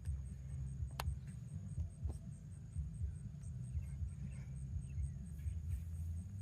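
Faint high insect chirping, about four even ticks a second, over a steady low rumble, with one sharp click about a second in.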